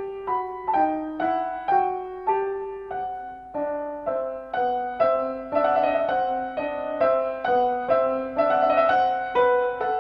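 Solo piano music: a flowing run of single notes and chords, each struck sharply and fading, a few a second.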